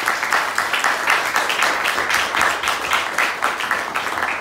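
Applause from a small group in a room, with one pair of hands clapping close by and loud over the rest.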